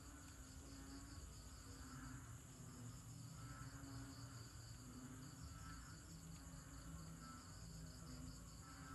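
Faint, repeated low calls of a banded bullfrog (Kaloula pulchra), short notes recurring every second or so, over a steady chorus of crickets trilling and pulsing high up.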